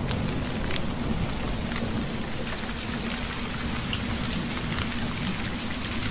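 Rain falling onto open water: a steady hiss with individual drops splashing through it and a low rumble underneath.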